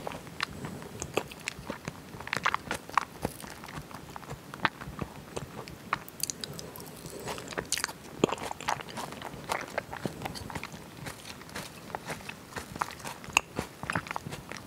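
Close-miked chewing of a mouthful of raw salmon sashimi: wet mouth sounds with irregular small clicks.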